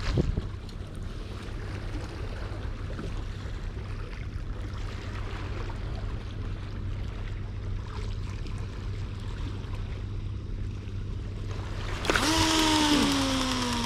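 Wind and surf noise, then about twelve seconds in a long cast: the baitcasting reel's spool spins up with a whine that falls steadily in pitch as it slows.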